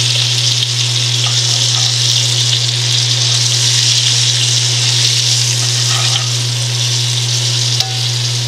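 Breaded rock cod fillets shallow-frying in hot oil in a cast-iron skillet: a steady, even sizzle, with a steady low hum underneath.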